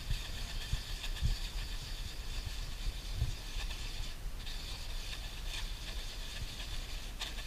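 Wooden sticks stirring and scraping thick two-part epoxy putty around a paper plate, a steady scratchy hiss that breaks off briefly a little past the middle, with low knocks and rumble underneath.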